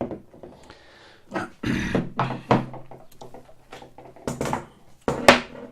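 Several knocks and thunks as mount parts are handled and set down on a desk, the loudest near the end.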